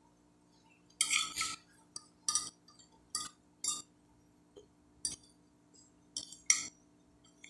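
A metal spoon clinking and scraping against a glass plate while scooping up rice and farofa: about eight short, sharp sounds at uneven intervals.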